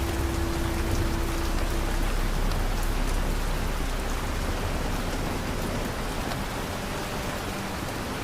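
Steady rain falling, an even wash of noise with scattered drops. A faint held low tone sounds under it for the first two seconds, then fades.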